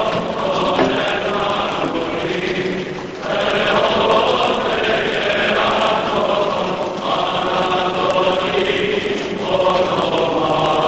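Church choir chanting a Greek Orthodox wedding hymn, men's voices singing together in long sustained phrases, with a short break about three seconds in.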